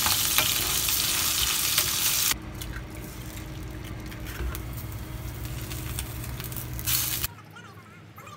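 Food sizzling in a frying pan, loud for about two seconds, then dropping suddenly to a quieter sizzle with a few clicks, until it cuts off near the end.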